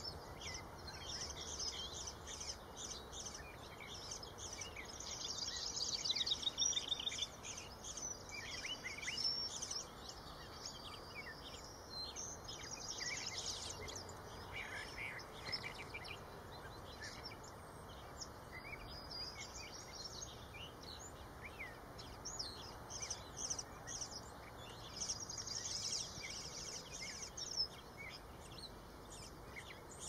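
Eastern bluebird fledglings begging with many short, high chirps and quick trills that come in thicker bursts several times.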